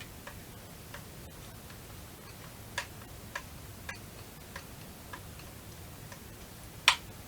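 Light, irregularly spaced clicks and taps of small metal parts and tools being handled on a .22 rifle during disassembly, with one sharper click near the end.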